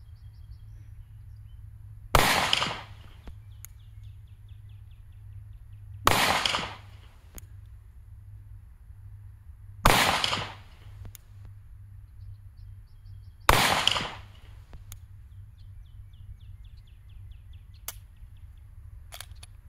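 Four gunshots about four seconds apart, each with a short ringing tail. They are handloaded 165-grain full metal jacket flat-point rounds charged with 6.5 grains of CFE 223 powder.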